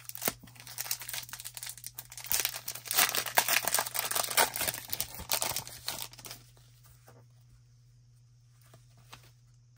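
Wrapper of a hockey card pack being torn open and crinkled by hand, a dense crackling that is loudest in the middle and stops about six seconds in.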